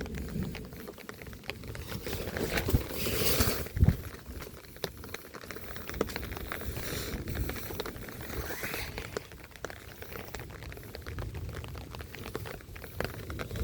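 Rain pattering, with many irregular sharp drips and taps. A louder rushing swell builds about three seconds in and ends with a heavier knock.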